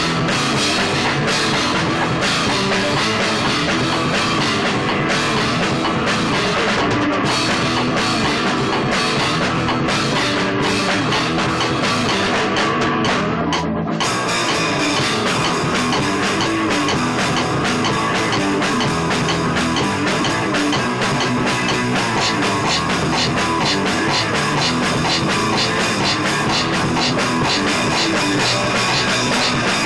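Loud, dense rock music with a full drum kit, playing steadily, with a brief dip about halfway through where the highs drop away.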